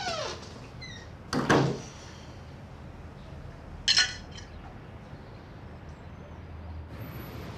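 A door shutting with a single thud about a second and a half in, then a sharper, shorter click about four seconds in.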